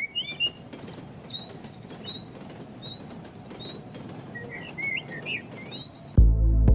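Small birds chirping and tweeting in many short rising calls over a steady outdoor ambience. Just before the end, a music track cuts in with a heavy bass beat.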